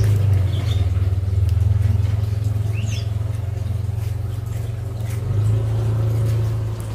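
A steady low mechanical hum, like an engine running, throughout. A few short high chirps come near the start and again about three seconds in.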